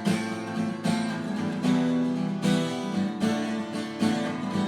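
Acoustic guitar strummed steadily in chords, about one strum every second, as the instrumental accompaniment to a worship song between sung lines.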